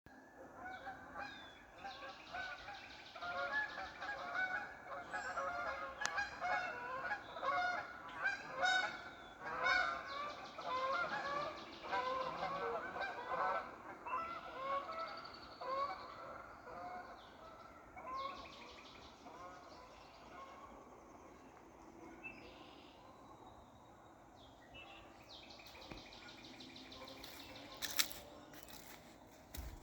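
A flock of Canada geese honking as they fly over, many calls overlapping, loudest in the first half and fading away after about fifteen seconds. A single sharp snap comes near the end.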